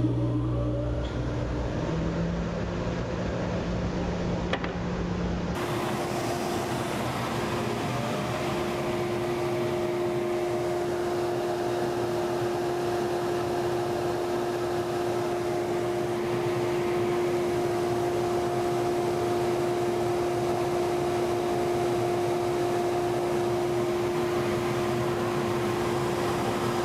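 Shop dust collector running steadily, air rushing into a bandsaw's under-table suction box through the collection hose. The sound changes abruptly about five seconds in, after which a steady hum sits over the rush of air.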